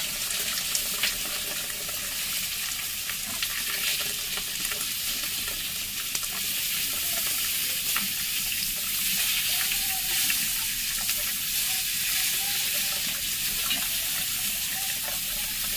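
Starch water (pej) draining from a pot of boiled rice through a cloth into a steel bowl: a steady trickling hiss, with a few faint clicks.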